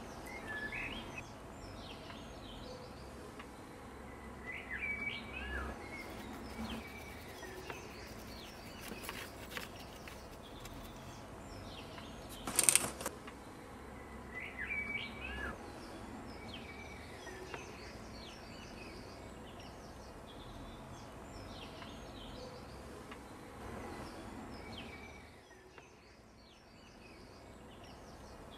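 Outdoor background ambience with small birds chirping on and off in short rising and falling calls, and one brief loud noise about twelve and a half seconds in.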